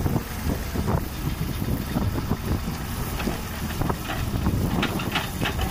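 Tractor engine running steadily while it powers a tractor-mounted hydraulic backhoe digging soil, with a run of short clattering knocks near the end.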